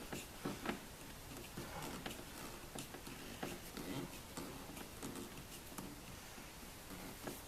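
Faint, scattered light clicks and taps of hands handling parts and tools, over low room noise.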